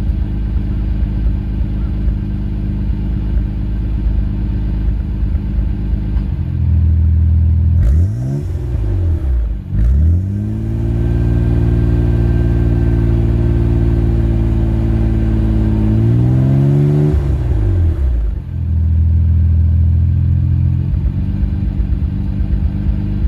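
Nissan Skyline R33 GT-R's twin-turbo straight-six (RB26DETT) idling, then blipped up and down twice and held at raised revs for about five seconds before dropping back to idle. The engine runs without stumbling on stale petrol after a long lay-up.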